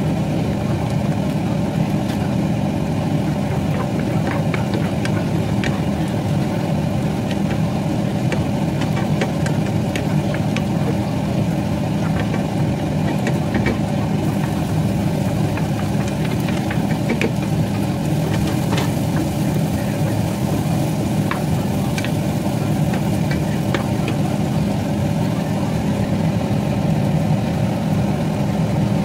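Steady mechanical hum, like a motor or fan running, with scattered light clicks and taps.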